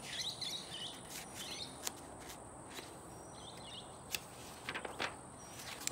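Quiet outdoor backdrop of birds chirping briefly several times over a steady high-pitched whine, with a few soft clicks about two, four and five seconds in.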